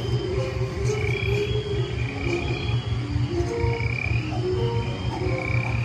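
Dark-ride soundtrack for a starry night scene: croaking night-creature effects pulsing over a steady low rumble, with slow held musical tones coming and going.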